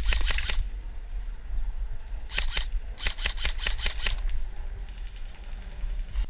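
Airsoft gun firing three quick bursts of rapid clicking shots: a short burst at the start, another about two and a half seconds in, and a longer one about a second later.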